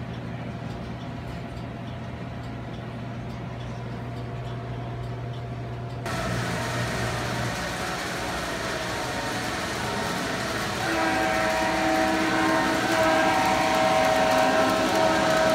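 Sound-equipped model New York Central diesel locomotive running on a layout, its sound unit sounding a multi-note diesel horn chord held for several seconds from about eleven seconds in. Before that there is a steady low hum, and after a change about six seconds in there is a running noise.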